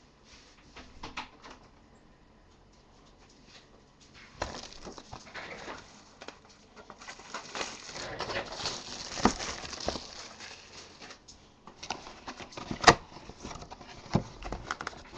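Cardboard trading-card boxes being handled and shifted on a desk: scattered knocks and taps, a stretch of rustling in the middle, and a sharp click a little before the end.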